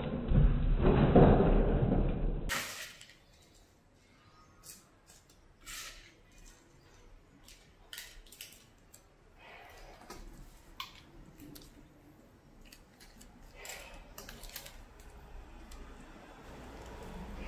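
Rats scrambling and knocking inside a red plastic bucket trap, a loud dense clatter that cuts off suddenly after about two and a half seconds. Then a quieter run of scattered light clicks and taps from hands handling the trap's plastic plates and laying bait.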